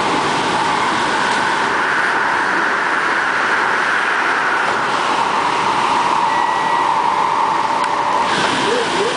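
Steady running noise inside an MTR K-Train carriage on the move: wheels on rail and rushing air form an even, loud drone. A brief faint whistle-like tone comes about six seconds in.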